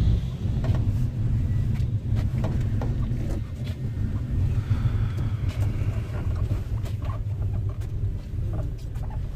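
Marshrutka minibus engine and road rumble, steady and low, heard from inside the moving vehicle, with scattered light knocks and rattles.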